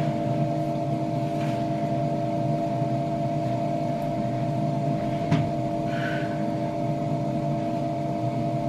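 Steady hum of a small motor with two even tones. Faint rustles of clothing come about halfway through.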